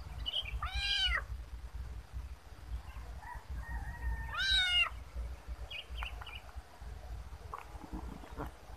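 Kitten meowing twice, short rising-and-falling calls about three and a half seconds apart, over a low rumble.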